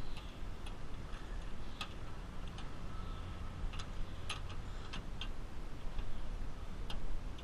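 Scattered light clicks and taps, about ten, irregularly spaced, as a truck-bed tie-down anchor is worked by hand into the stake pocket of a pickup's bed rail. A steady low hum runs underneath.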